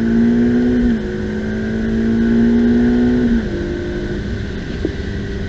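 Ferrari F8 Tributo's twin-turbo V8 accelerating under load, its pitch climbing steadily and dropping sharply twice, about a second in and about three and a half seconds in, as it shifts up a gear each time.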